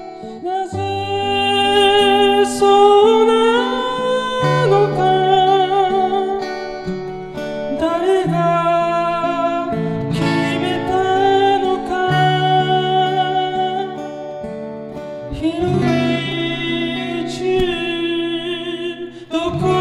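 A man singing long, wavering held notes to his own acoustic guitar accompaniment, a live performance in a room. It is heard as a mix of camera-microphone, direct line and handheld-recorder tracks.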